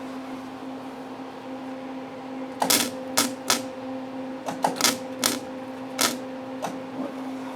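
Old Lincoln flux-core wire welder striking its arc in about nine short, crackling spurts, starting a couple of seconds in, over a steady hum. The wire feed on this welder has been giving trouble.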